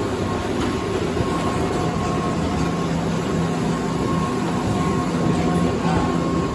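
Drive machinery of an old Stadeli chairlift running steadily: a continuous mechanical hum with a steady high whine over it.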